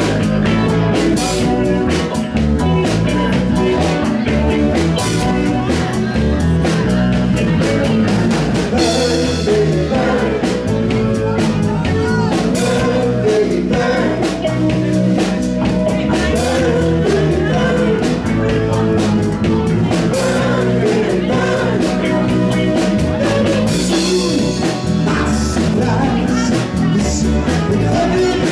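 Live rock-and-roll band playing loudly: drum kit, electric guitar and a singer.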